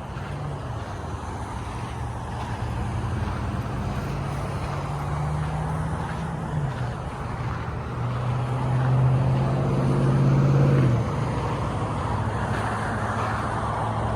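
Nearby road traffic: a steady rush of vehicles with a low engine hum that grows louder over several seconds and drops away suddenly a little past the middle.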